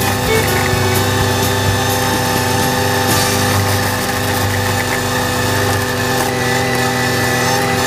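Valtra A93 tractor's diesel engine running steadily, driving a PTO-powered Agrimaster KP2600 flail mower that is cutting grass.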